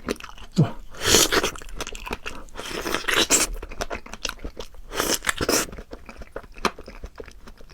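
Close-up crunching of a person biting into and chewing crisp guava, with louder bites about a second, three and five seconds in and wet chewing clicks between.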